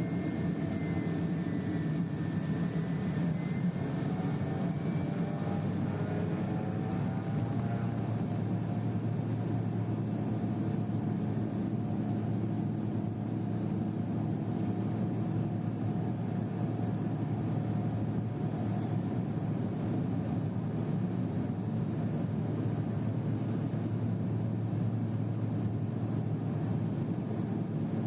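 Pilatus PC-12's single Pratt & Whitney PT6A turboprop running, heard from inside the cabin. Its pitch shifts over the first several seconds, then it settles into a steady drone.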